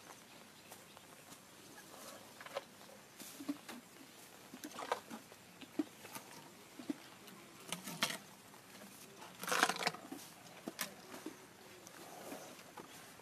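Asian elephant feeding on grass close by: irregular crunching, tearing and rustling, with a louder rustle about ten seconds in.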